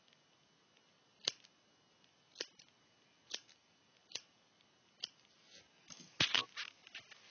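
Scissors snipping through a doll's wig hair: five single cuts about a second apart, then a quicker, louder run of snips near the end.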